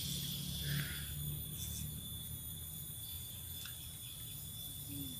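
Steady high-pitched chirring of insects, like crickets, with a couple of faint ticks.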